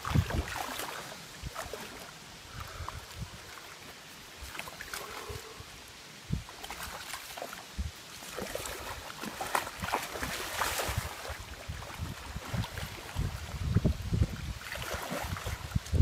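Wels catfish thrashing in shallow river water while being grabbed by hand: irregular splashes and sloshing water, growing busier and louder in the second half.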